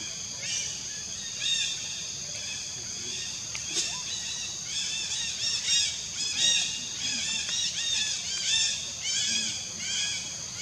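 Steady high-pitched insect drone from the forest. From about five seconds in it is joined by a run of short, high chirping calls, a few each second.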